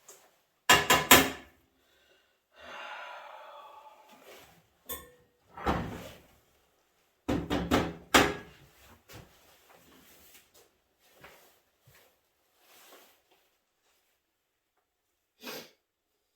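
Metal parts of an old microwave clanking and scraping as they are handled and pulled apart: a quick cluster of knocks about a second in, a rasping scrape around three seconds, more clanks in the middle, and a single click near the end.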